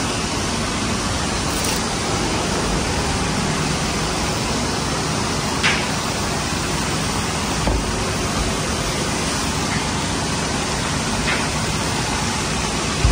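Steady hissing, rushing background noise, with a few faint clicks.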